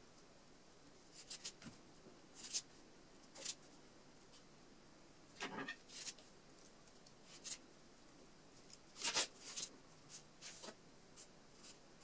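Faint, scattered rustles and small clicks of hands working a beaded flower stem, handling beaded wire and floral tape, one every second or so at irregular times.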